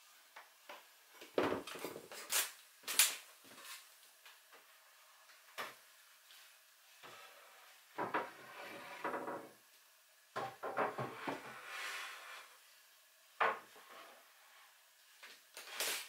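Pine shelf boards being handled and set onto a wooden frame: scattered wooden knocks and clunks with a few scraping slides, the loudest knocks about two to three seconds in.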